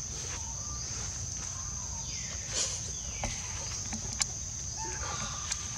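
Steady high-pitched drone of insects, with a soft rustle about two and a half seconds in and a few faint clicks.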